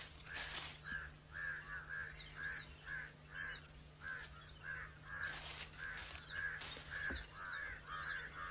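Birds calling over and over, about two short calls a second, with thinner chirps higher up and a low steady hum underneath.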